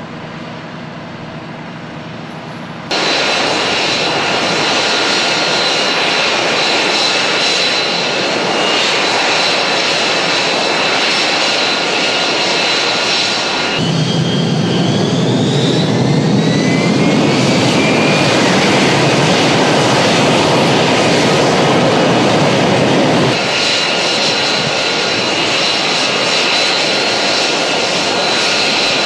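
F-35 Lightning II's single turbofan jet engine running loud, a dense rushing noise with steady whining tones. About three seconds in it cuts in abruptly over a quieter engine sound, and midway a whine rises in pitch as the engine spools up, with a heavy low rumble that stops abruptly later on.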